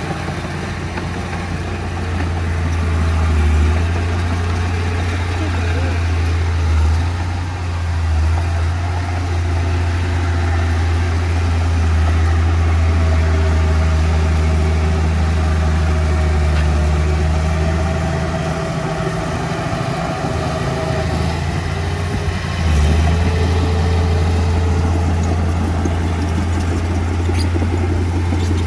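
Diesel engine of earthmoving machinery running steadily, with its load and loudness surging several times.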